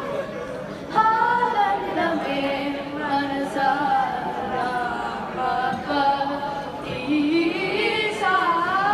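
Girls singing a song into handheld microphones, the melody moving in long held notes with sliding rises and falls in pitch.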